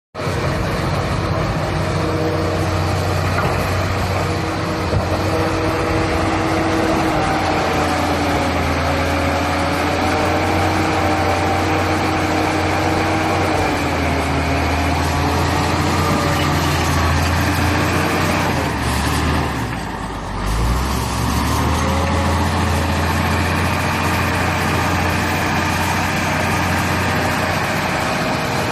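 Shantui SD16 bulldozer's diesel engine running steadily, with a low hum and tones that waver in pitch. About twenty seconds in, the engine note dips briefly and then picks back up.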